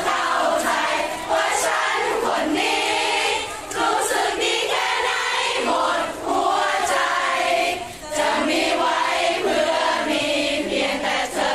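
A large crowd of fans, mostly women's voices, singing together in unison in phrases, with short breaks between lines.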